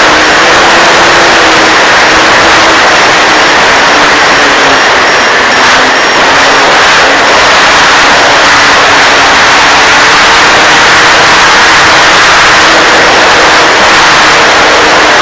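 A model airplane's motor and propeller running under a loud, steady rushing noise. Its drone dips slightly in pitch a few seconds in and then climbs back.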